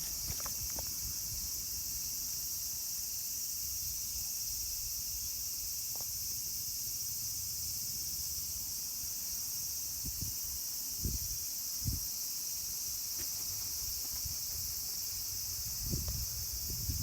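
Steady high-pitched chorus of insects with no breaks, with a few soft low thumps about ten, eleven and twelve seconds in and again near the end.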